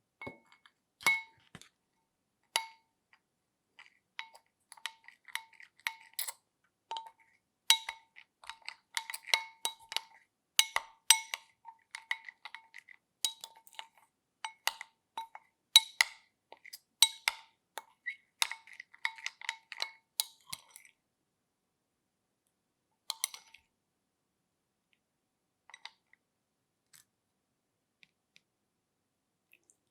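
Rapid, irregular clinks of something hard striking a small resonant container, each ringing at the same pitch. The clinks are dense for about the first twenty seconds, then thin out to a few scattered clicks.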